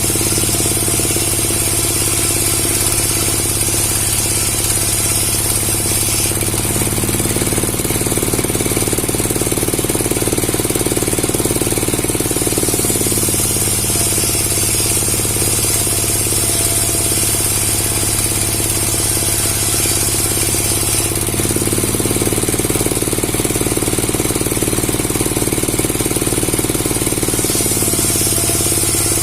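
A motor-driven machine running continuously with a steady low hum and a high hiss. Its sound shifts between two states every six to eight seconds.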